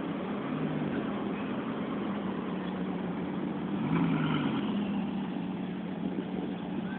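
Bugatti Veyron's quad-turbocharged W16 engine running at low speed as the car pulls slowly away: a steady low hum that swells briefly about four seconds in.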